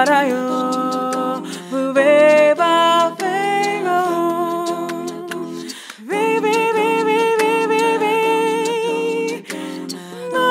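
Female a cappella group of six voices singing in close harmony: a lead voice over sustained, wordless backing chords, with a short break about six seconds in.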